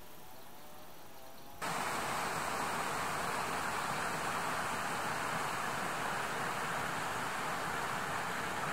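Faint outdoor ambience that gives way suddenly, about a second and a half in, to a steady, even rushing noise.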